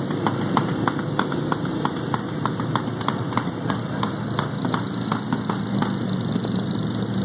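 Small motorcycle engines running together in a group ride, a steady engine drone from the riders all around. Short sharp ticks come several times a second over it.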